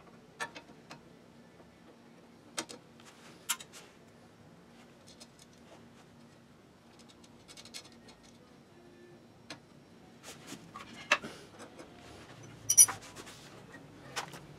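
Scattered metallic clicks and taps from an angle-iron extension, small bolts and a wrench being handled as the extension is bolted to a clutch motor's pedal lever, over a faint steady hum. The clicks come singly at uneven intervals, with a cluster and the loudest clink near the end.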